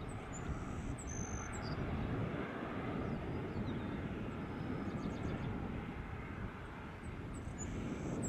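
Airbus A350's Rolls-Royce Trent XWB jet engines at low taxi power as the airliner rolls slowly past: a steady jet noise without change.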